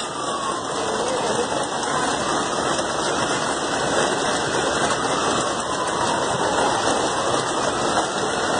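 Heavy rain and rushing floodwater making a steady, even hiss.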